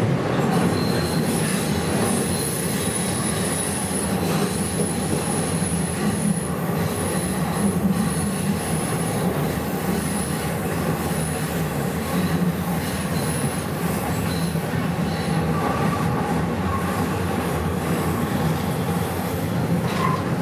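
Subway train running through a tunnel, heard from inside the car: a steady rumble of wheels on rails, with a high-pitched wheel squeal that comes and goes.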